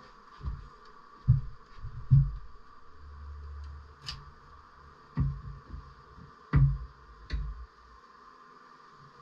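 Honeybees in an observation hive buzzing steadily, with about half a dozen dull low thumps, some close together in pairs, louder than the buzz.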